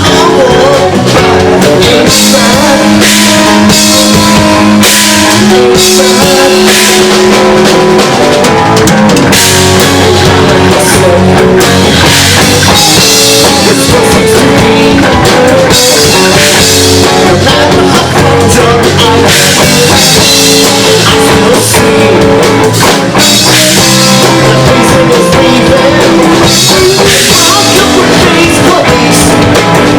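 Live rock trio playing loud and steady: guitar, bass guitar and drum kit.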